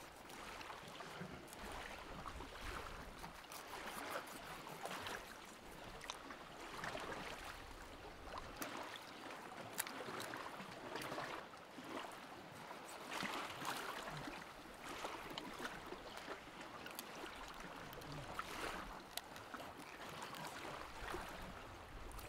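Small waves lapping and trickling against a rocky shoreline, a faint wash that swells and fades every few seconds, with scattered small clicks.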